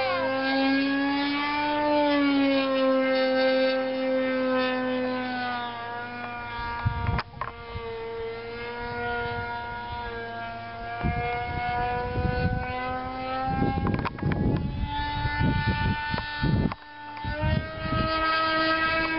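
Super Tigre .45 glow engine of an RC sport plane in flight, a steady high whine whose pitch slowly rises and falls as the plane passes. Through the second half, irregular low rumbling gusts of wind hit the microphone.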